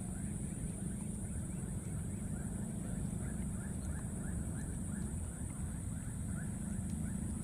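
Outdoor ambience: a steady low rumble, a continuous high-pitched hiss, and many short rising chirps repeating a few times a second.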